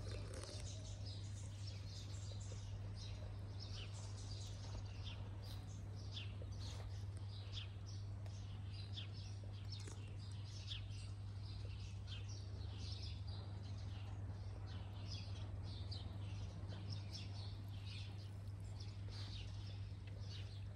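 Small birds chirping in quick, scattered calls, over a steady low hum.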